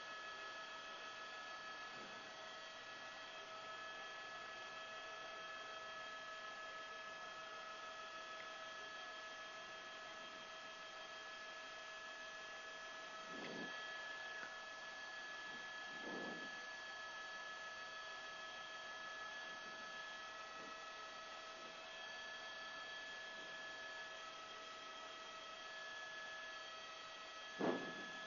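Faint, steady electrical hum with a few fixed tones over a light hiss, as on an open radio or microphone line, broken by a couple of brief faint blips and a short louder one near the end.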